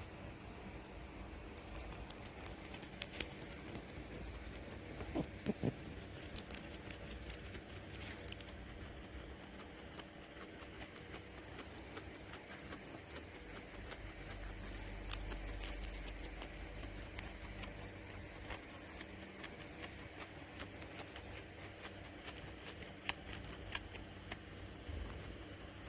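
Guinea pig chewing food, a long run of small crisp crunching clicks with a few louder crunches.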